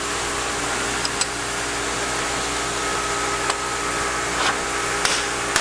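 Steady mechanical hum and hiss of workshop background noise, with a few light clicks as a rubber seal and a wooden block are handled on a metal timing cover, and a sharper tap near the end.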